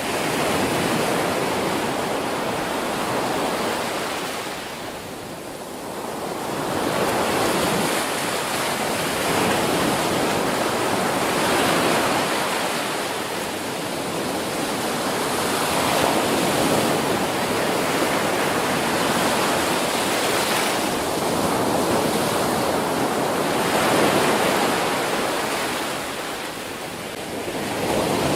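Ocean waves breaking on a beach, a continuous rush of surf that swells and eases every few seconds, with lulls about five seconds in and near the end.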